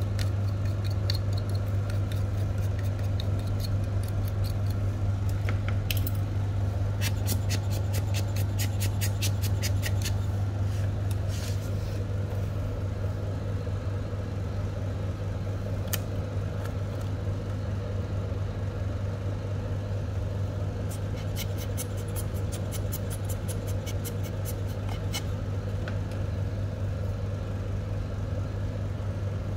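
A steady low mechanical hum, like a machine or engine running, with two spells of rapid clicking, one about a quarter of the way in and another about three quarters in.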